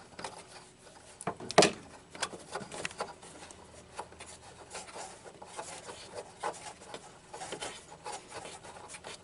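Small irregular clicks, scrapes and rubbing from a retaining nut being spun off by hand behind a Mercedes-Benz W123 turn signal lens assembly, with one sharper click about a second and a half in.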